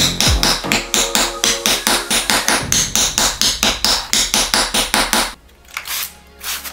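Leatherworking mallet striking a setter in quick even blows, about five a second, setting decorative rivets into vegetable-tan leather armor pieces. The hammering stops about five seconds in, leaving background music.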